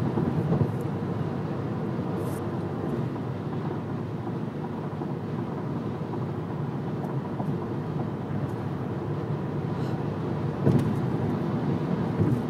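Steady low road and engine noise inside a car cruising on a highway, with one louder bump near the end.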